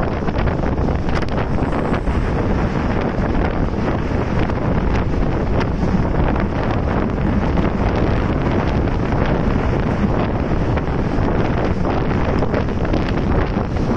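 Wind buffeting the microphone held out of the window of a moving passenger train, over the steady running noise of the carriage on the track.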